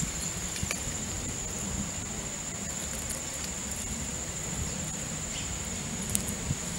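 Insects trilling steadily in one continuous high-pitched tone, over a low background rumble, with a few faint clicks.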